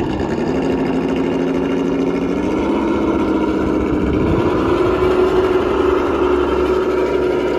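Traxxas TRX-4 High Trail RC truck's electric motor and gearbox whining as it drives, pulling a loaded trailer. The whine rises gradually in pitch as the truck picks up speed, with wind rumbling on the microphone underneath.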